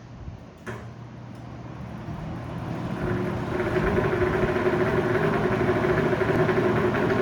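Penncrest 20-inch box fan with a Lakewood motor speeding up from low to high: the rush of air and the motor hum grow louder over about four seconds, then run steady with a clear hum. A single click sounds just under a second in.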